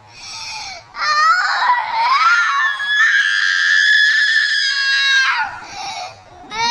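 A young child screaming in a very high pitch: a wavering cry that rises and falls, then one long scream held steady for about two seconds.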